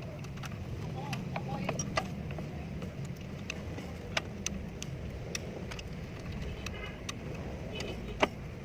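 Nissan Serena engine running with a steady low hum, with scattered sharp metallic clicks and taps from tools on top. The loudest clicks come about four seconds in and just after eight seconds.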